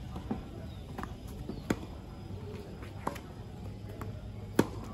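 Tennis rally on a hard court: a series of sharp pops as the ball is struck by racquets and bounces. The two loudest strikes come about three seconds apart, the last near the end, with fainter hits and bounces between.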